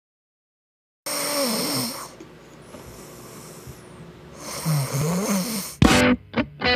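A person snoring: two long, rasping snores a few seconds apart. Near the end come a few sharp hits.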